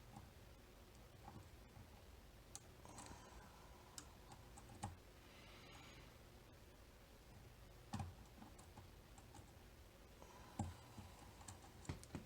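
Faint, scattered clicks of lock picks working the pins of a Mul-T-Lock Interactive cam lock: single light ticks a second or several apart, the sharpest about five, eight and ten and a half seconds in.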